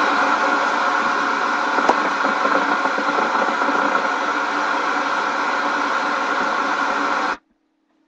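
Television static between channels: a loud, steady hiss that cuts in suddenly and cuts off after about seven seconds.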